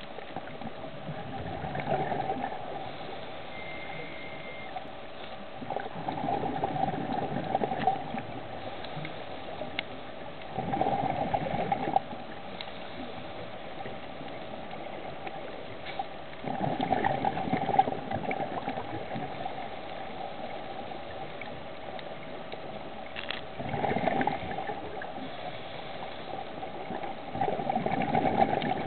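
Scuba diver breathing underwater: exhaled bubbles from the regulator bubble past the camera six times, about every five seconds, each for a second or two, with a steady hiss in between.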